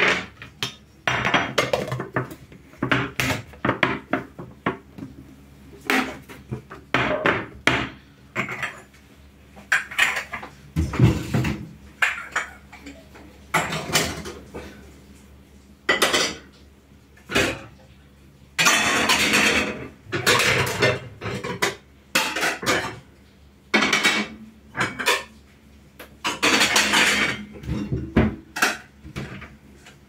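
Dishes and cutlery clattering and clinking in irregular bursts as they are handled and stacked into a kitchen cupboard.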